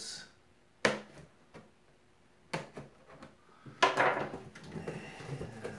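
Handling sounds from cutting open a cardboard box with a steak knife on a wooden table: a sharp knock about a second in, another about two and a half seconds in, then a louder scraping rustle about four seconds in, with quieter rustling after it.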